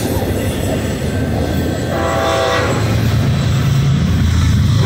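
Two BNSF double-stack intermodal freight trains passing each other, with a steady rumble of wheels on rail that grows heavier in the last couple of seconds. A brief high tone sounds about two seconds in.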